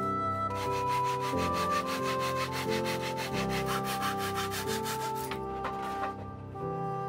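A handsaw cutting through a thin wooden board in a rapid, even rhythm of strokes, about five a second, stopping about five seconds in. Background music with held notes plays underneath.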